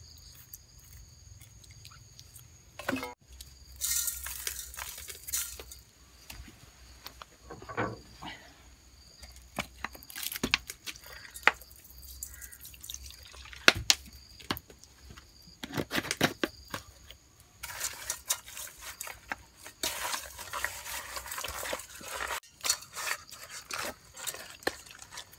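Hands preparing mackerel: a knife scoring the fish on a wooden chopping block with small taps and clicks, fish sauce poured over the fish in a steel pot, then wet rubbing and handling sounds as a hand works the salt and sauce into the fish, with a longer stretch of rubbing near the end.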